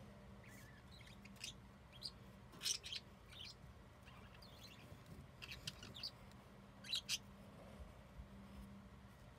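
Drawing strokes on paper: short, quick scratchy strokes in small clusters with pauses between, the loudest about three and seven seconds in, over a faint steady low hum.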